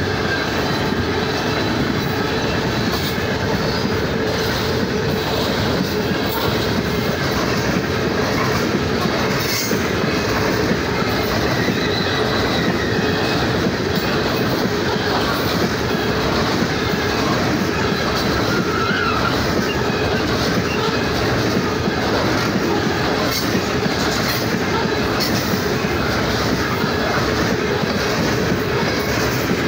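Loaded coal cars of a freight train rolling past at close range: a steady rumble of steel wheels on rail, with repeated clacking of the wheels and now and then a faint wheel squeal.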